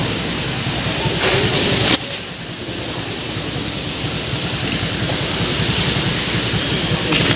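Steady rushing outdoor noise with a fluttering low rumble. It drops abruptly about two seconds in, then carries on at an even level.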